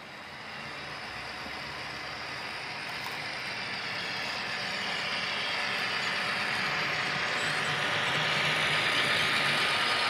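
Model railway diesel freight train running along the track, its motor and wheel noise getting steadily louder as it comes closer.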